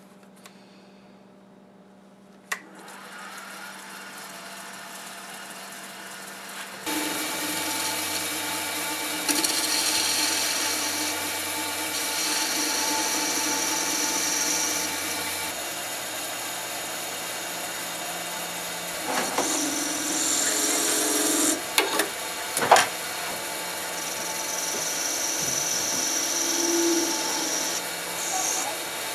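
Delta wood lathe running with a steady hum that grows louder about seven seconds in, while a chisel cuts and scrapes the spinning ebony stem blank in several rough passes, with a few sharp clicks.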